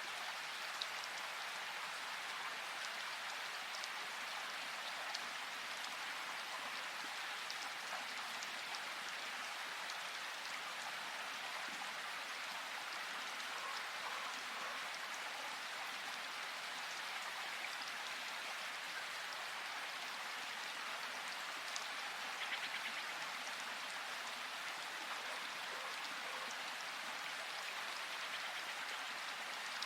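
Steady rain falling in a forest, an even hiss with scattered individual drops ticking close by.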